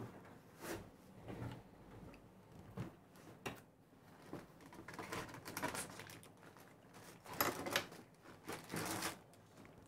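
Small model-kit parts and packaging being handled on a table: scattered clicks and rustles, with a longer rustle about five seconds in and a cluster of sharper clicks near the end.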